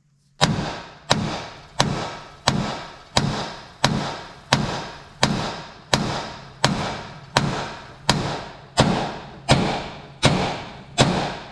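A big hammer striking the top of a rust-seized steering spindle on a John Deere 175 riding mower, about sixteen blows at an even pace of roughly three every two seconds, each with a short ring. The spindle is rusted almost solid and is being pounded to knock it loose.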